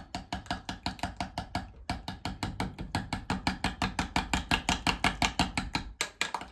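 Metal utensil beating a thick mayonnaise dressing in a glass Pyrex measuring cup, clicking against the glass at a fast, even pace of about seven strokes a second, with short breaks about two and six seconds in.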